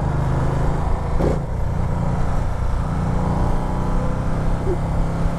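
A 2016 Ducati Multistrada 1200's Testastretta L-twin engine running steadily under light throttle in second gear, pulling gently as the bike gathers speed, with wind rush over the microphone.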